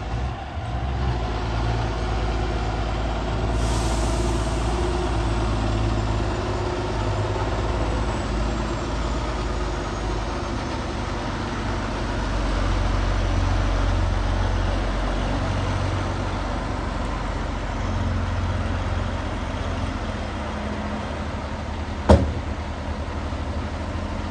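Diesel engines of heavy-haulage trucks running steadily under load at low speed as they move an oversize load. A brief hiss comes about four seconds in, and a single sharp bang near the end is the loudest sound.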